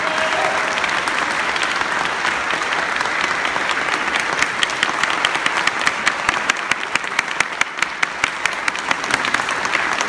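Audience applauding after a song. About halfway through, one set of loud, sharp claps close by stands out above the general clapping.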